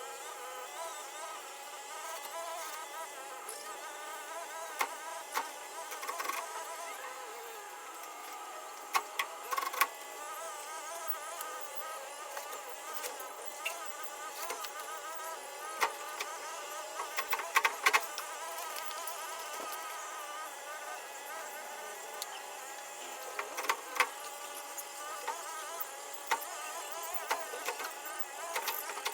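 Budgerigars chattering and warbling steadily, a wavering buzzy twitter, with occasional sharp clicks standing out above it.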